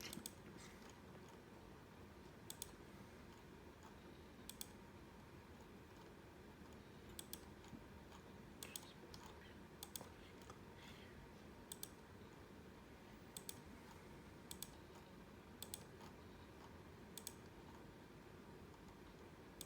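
Near silence with faint, sharp clicks, some doubled, coming every second or two at uneven spacing.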